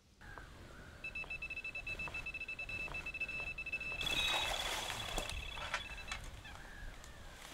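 Electronic carp bite alarm sounding a rapid, continuous stream of high beeps from about a second in, with a higher second tone joining for about a second near the middle: a take, with a fish running off with the line. Water splashes about four seconds in as a released carp swims off.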